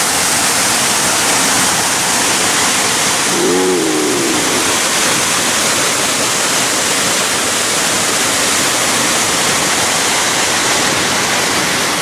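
Small woodland waterfall and stream rushing steadily, running full after a day of heavy rain. A brief faint pitched sound rises and falls about three and a half seconds in.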